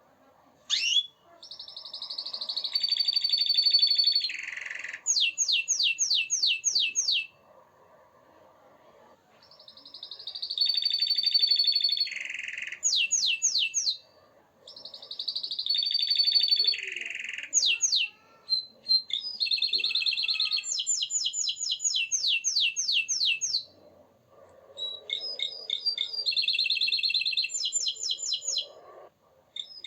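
Domestic canary singing: bouts of fast trills and rapidly repeated sweeping notes, broken by short pauses of a second or two.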